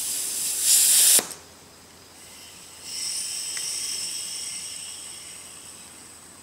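High-pressure air hissing through a RAP4 scuba fill station into an HPA paintball tank as the scuba tank valve is opened. A loud hiss lasts about a second and cuts off sharply. After a short pause a softer hiss with a high whistle starts and slowly fades as the HPA tank fills and the pressures equalize.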